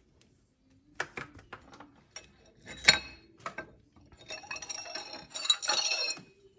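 Mesh-backed arabesque mosaic tiles clinking against one another and the granite countertop as the tile sheet is handled and lifted. A few light taps and a sharper knock come first, then a longer run of dense clinking near the end.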